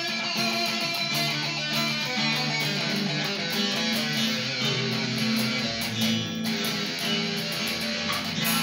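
SG-style solid-body electric guitar playing a psychedelic rock song, with strummed chords and ringing held notes.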